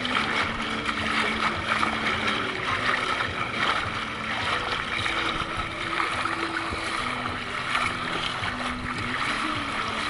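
Shallow seawater lapping and sloshing around a camera held at the water's surface: a steady wash of splashing noise.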